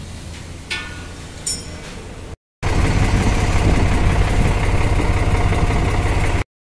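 A quiet low hum with a few light clicks and a brief squeak. Then, after an abrupt cut about two and a half seconds in, a tractor's diesel engine runs steadily, loud and close.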